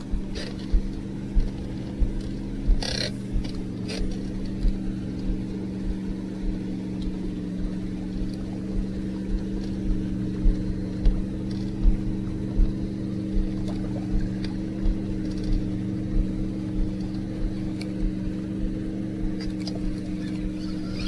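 A boat motor humming steadily at one constant pitch, with irregular low thumps against the microphone and a few light clicks.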